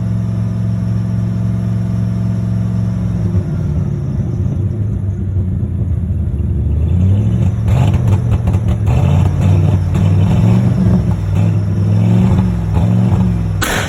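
1995 Ford F-150's 302 V8 running at a steady idle, then its speed rising and falling unevenly from about halfway through, on a truck with a failing alternator. A short loud burst near the end.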